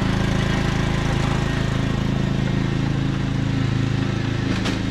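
Cub Cadet XT1 riding lawn mower engine running steadily as the mower drives away, easing slightly in loudness. A single light click near the end.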